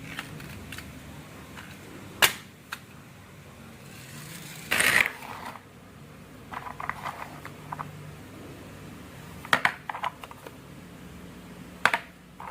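Marbles clacking and rolling along a wooden HABA marble run: sharp single clicks, a short rattling run about five seconds in, then clusters of light taps and a few more clacks near the end.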